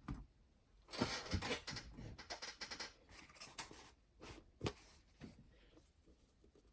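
Clicks and light rattles of an all-metal cassette deck mechanism being handled, with a dense clatter from about one to three seconds in and a sharp click near the end.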